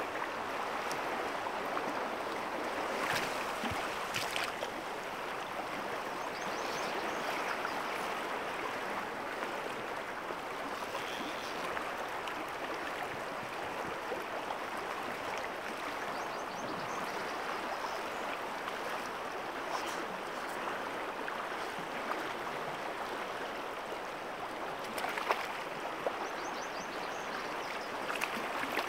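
Rushing river current: a steady, even wash of flowing water, broken by a few brief clicks.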